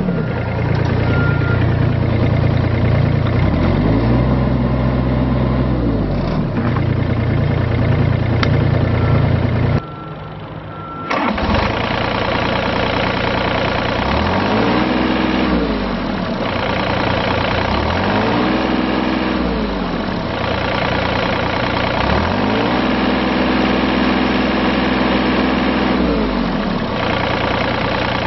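2008 Hitachi ZX30U-3 mini excavator's diesel engine running. It is revved up and let back down to idle about four times; the last rev, near the end, is held for several seconds.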